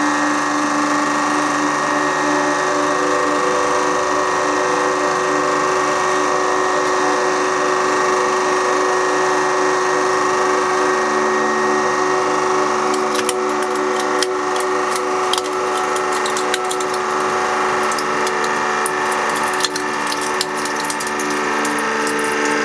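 Hydraulic press pump motor running with a steady hum. From about halfway on, sharp cracks and crackles from the hole punch and its thick stack of paper being forced under the ram.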